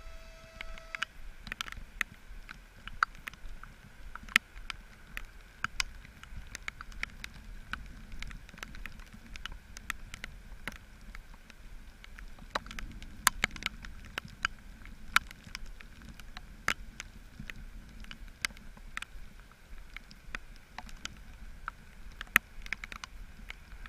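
TEP70BS diesel locomotive pulling away with a passenger train: a low engine rumble under many irregular sharp clicks. A short steady horn note cuts off about a second in.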